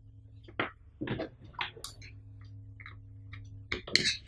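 Handling sounds of a short USB charging cable being picked up and its connector plugged into a smartphone: a series of short clicks and rustles, the sharpest about half a second in and just before the end, over a low steady hum.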